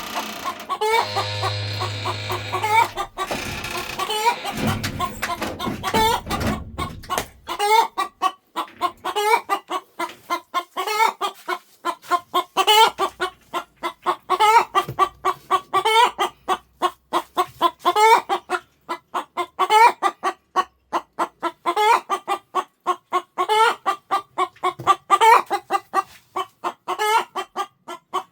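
Hen clucking in a quick, even run of short clucks, about four a second, typical of a broody hen calling to her chicks after a natural hatch. A louder, steadier sound overlaps the clucking for the first several seconds.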